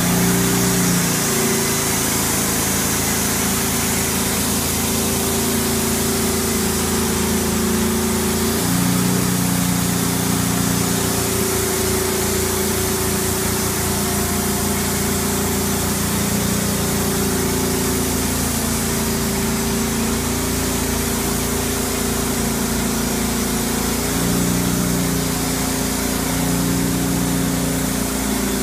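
Norwood portable band sawmill running steadily, its gas engine under load while the band blade cuts through a black walnut log. The engine note shifts a few times.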